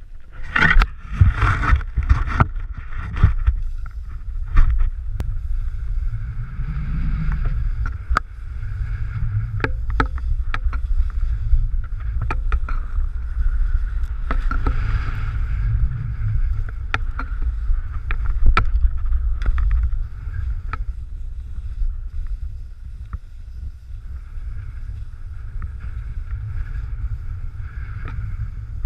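Wind rumbling on a pole-mounted action camera's microphone while skiing downhill, with the hiss of skis sliding over snow. A cluster of knocks and clatters from the pole and camera mount comes in the first few seconds, and single clicks are scattered through.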